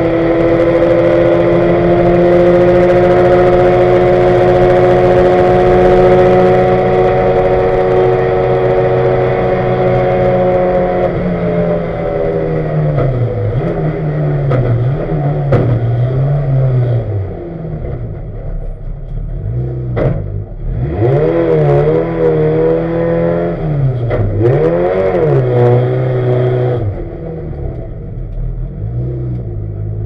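Turbocharged Ford Focus race car engine heard from inside the cabin, running with a failed turbo: a steady pull at constant revs for about the first ten seconds, then the revs rising and falling repeatedly as the car slows, with a couple of sharp knocks, settling quieter near the end.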